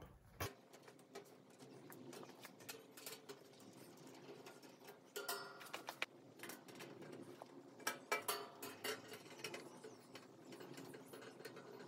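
Phillips screwdriver tightening screws into a black metal ceiling-fan light fixture and its mounting pan: faint clicks and scrapes of metal on metal. A few brighter metallic taps with a short ring come about five and eight seconds in.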